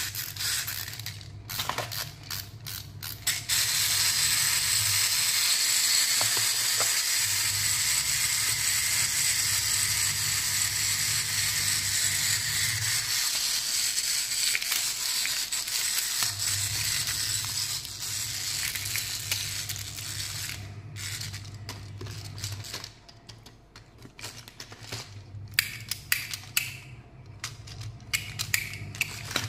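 Plastic toy mechanism ratcheting continuously as it is worked by hand, a dense rasping that starts a few seconds in and stops about two-thirds of the way through. After that come scattered sharp plastic clicks and clacks from the toys being handled.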